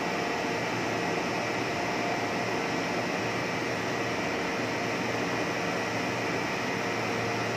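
Steady machine noise of a running plastic blown-film extrusion line: an even hiss with a few faint steady tones in it and no changes.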